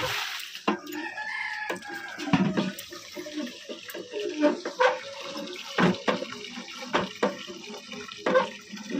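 Water gushing from an India-style hand pump's spout into a steel pot, with the pump clanking roughly once a second as it is worked. A rooster crows briefly about a second in.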